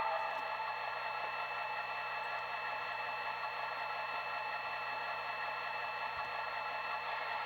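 Sound decoder of a ScaleTrains SD40-3 model locomotive playing a steady diesel engine idle through the model's small speaker, thin with little bass.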